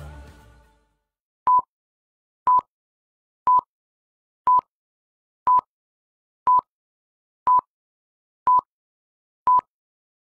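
Music fading out, then a steady series of nine short electronic beeps, all on the same mid-pitched tone, one each second, each switching on and off with a slight click.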